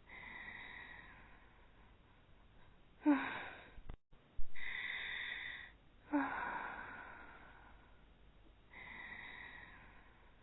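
Two anime characters snoring in a repeating cycle: a drawn-out breathy wheeze on the in-breath, then a short, sharp snort with a sliding pitch, about every three seconds.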